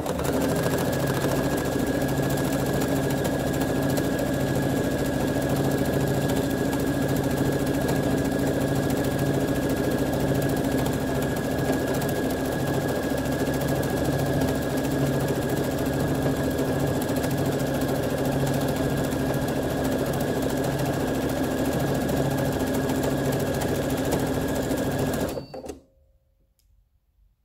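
Domestic electric sewing machine stitching continuously at a steady speed, with a constant high whine, then stopping abruptly about two seconds before the end.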